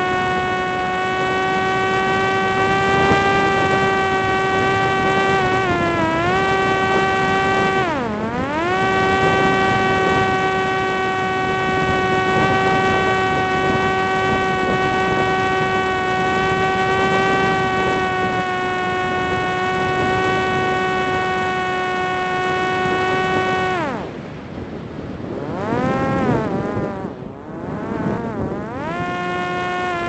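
Parrot Disco fixed-wing drone's electric motor and pusher propeller running with a steady whine over a rush of wind. The pitch dips briefly twice. About 24 seconds in the motor cuts out, then revs up and down several times before settling back to a steady whine near the end.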